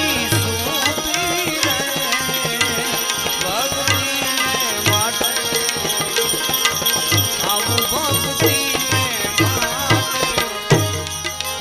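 Live Indian devotional folk music: tabla keeping a steady beat under a melody played on a harmonium or keyboard.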